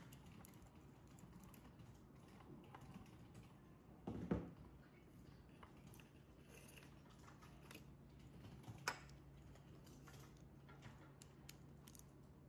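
Faint clicks and taps of a threaded cylindrical sensor and its metal nut being handled, over a steady low hum. Two sharper knocks come about four and nine seconds in.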